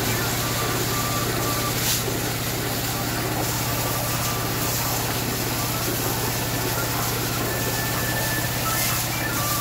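Small motor-driven water pump running steadily with a constant low drone, under the hiss and splatter of the pressure hose jet washing mud and gravel down a sluice.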